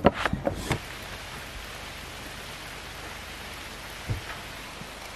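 Steady rain falling on a puddle and wet ground, an even hiss, with a single short thump about four seconds in. A few short, sharp knocks come in the first second.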